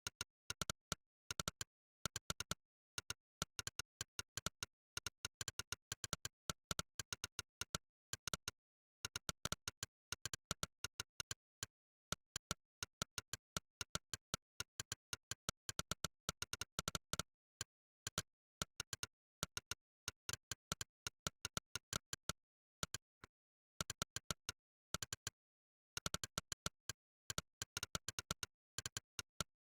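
Monkeytype's synthesized 'click' keypress sound, one short click per keystroke, coming in quick uneven runs of several a second with a few pauses of about a second. The silence between clicks is dead, as from a sound effect played by software rather than a recorded keyboard.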